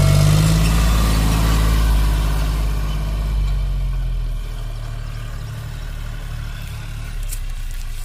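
John Deere 5105 tractor's three-cylinder diesel engine running steadily as it pulls a two-bottom reversible mouldboard plough. It is loud at first and drops to a quieter level about four seconds in as the tractor moves away.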